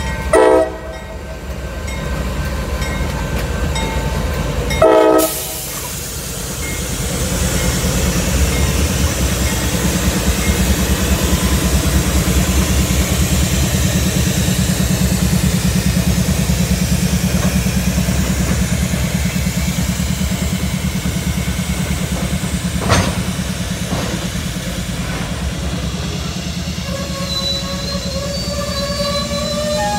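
Two short blasts of a Nathan K5LA five-chime horn on a CSX CW40-9 diesel locomotive, the first about half a second in and the second about five seconds in. The locomotive's diesel engine then rumbles under load as it pulls tank cars past. There is a single clank about two-thirds of the way through and a thin wheel squeal near the end.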